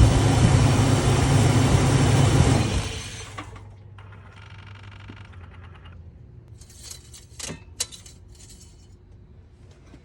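Chevrolet Silverado's 4.3-litre V6 running, cutting off about three seconds in, followed by a few light metallic clinks.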